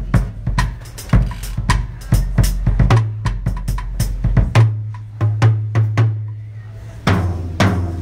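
Drum kit being played: quick, irregular snare strokes and cymbal hits over the bass drum, several strokes a second.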